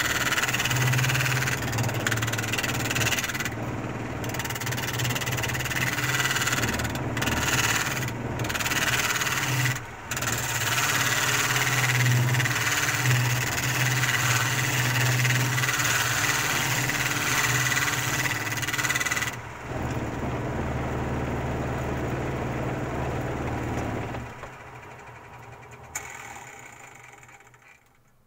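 A woodworking power tool running on wood with a steady motor hum and a harsh hiss, briefly easing off a few times. About two-thirds through it runs free without the hiss, then it is switched off and winds down, with a single click near the end.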